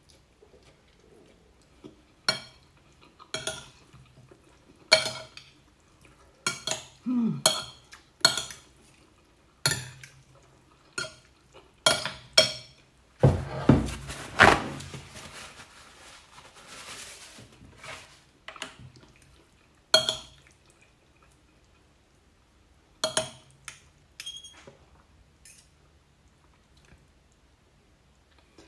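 Metal fork and spoon clinking and scraping against a ceramic plate while noodles are eaten, in irregular sharp clinks about a second apart, each with a short ring. About halfway through comes a louder knock and shuffle lasting a second or two.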